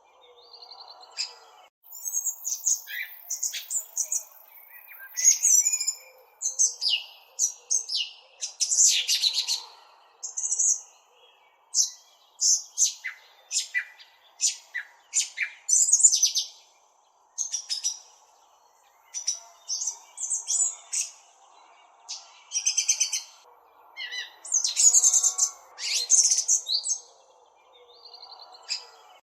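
Small bird chirping at close range: quick series of high chirps and short trills in irregular bouts, with brief pauses between them.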